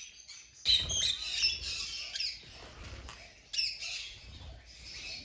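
Parrots squawking and chirping: several short, harsh calls, with the loudest about a second in and again near the end.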